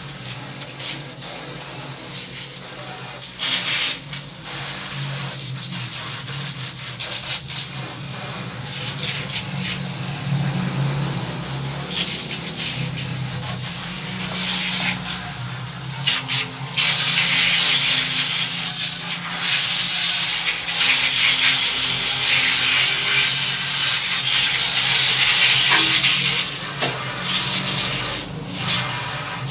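Running water splashing and spraying as it rinses parts, louder and fuller for much of the second half, with a steady low hum underneath.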